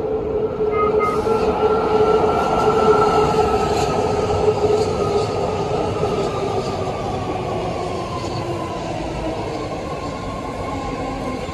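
BART Fleet of the Future train pulling in along the platform, its propulsion whining in two tones that slowly fall in pitch as it slows, over the rumble of steel wheels on rail. It is loudest a few seconds in as the cars pass close by, then eases off.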